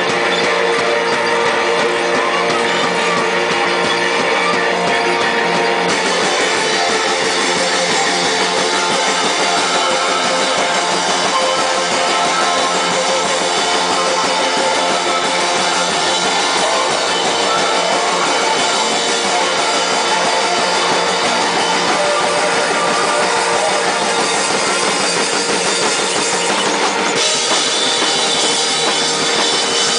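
Loud live band music, with a drum kit driving a dense, continuous wall of guitars and other instruments; the sound grows brighter about six seconds in.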